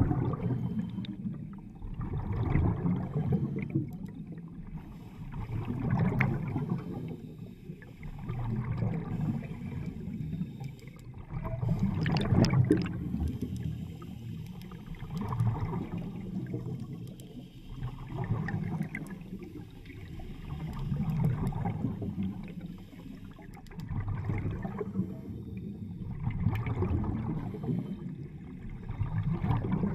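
Air bubbling and gurgling out of a diver's helmet exhaust underwater, in swells about every three seconds that follow the diver's breathing, one louder swell about twelve seconds in.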